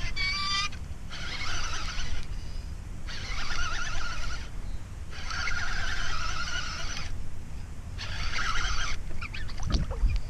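Fishing reel being cranked in repeated bursts of a second or two with short pauses, a stop-and-go retrieve of a topwater frog lure. A short honk-like call sounds right at the start, and a low thump with sharp clicks comes near the end.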